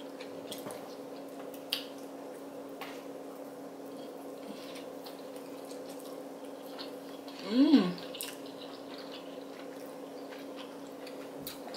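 Wet chewing and slurping of Samyang carbonara fire noodles and chewy rice cakes eaten with chopsticks: soft, scattered mouth clicks and smacks over a steady low hum. About seven and a half seconds in, one eater gives a short hummed "mmm" that rises and falls in pitch.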